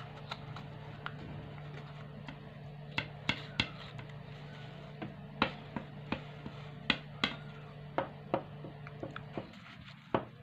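Creased printer paper being pulled open and shaped by hand into an origami boat: sharp, irregular crackles and snaps of the stiff folded paper. A steady low hum runs underneath and stops near the end.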